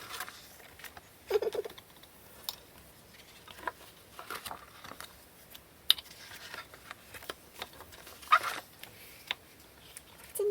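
Paper handling: photobook pages being turned and touched, with scattered soft clicks and rustles.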